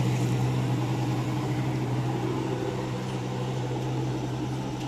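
Jet ski engine running with a steady drone, easing off slightly toward the end.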